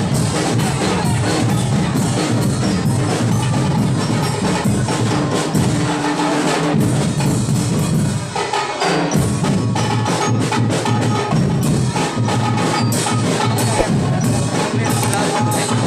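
Music with a fast, steady percussion beat of sharp wood-block-like clicks and drums. It thins out briefly about eight seconds in.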